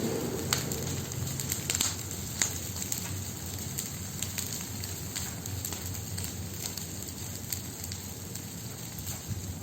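Campfire burning with a steady low rush and irregular sharp crackles and snaps of the wood, several close together in the first few seconds.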